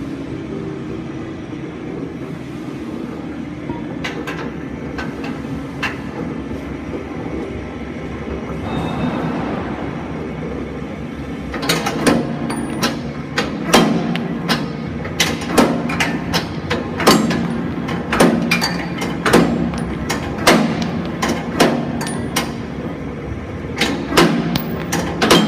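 A steady low hum, then, from about halfway through, a run of sharp knocks that come irregularly, about one or two a second.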